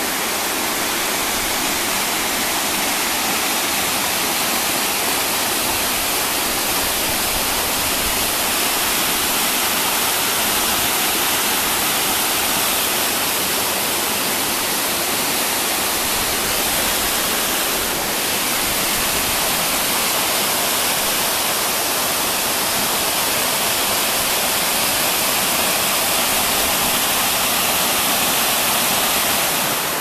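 Waterfall: water rushing down a sloping rock face and into a shallow forest stream, a steady, even rushing noise.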